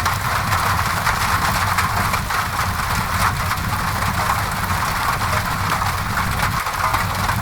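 Steady rain on a window mixed with a crackling fireplace: an even, dense hiss over a low rumble, with faint crackles scattered through.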